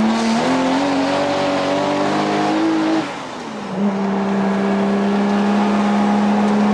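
Toyota JZX drift car's engine heard from inside the cabin, its revs climbing in gear, then falling with a short dip in loudness about three seconds in and holding steady after that.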